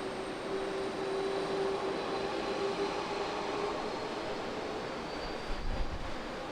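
Jet airliner engines running with a steady rush and a held tone that fades out about halfway through. A few low bumps come near the end.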